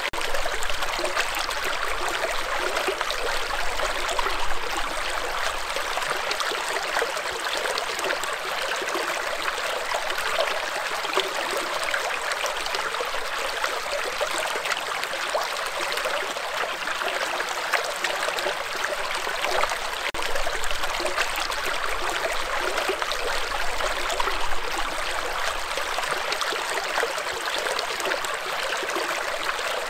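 Shallow stream running over and between rocks: a steady rushing of water flecked with fine splashing.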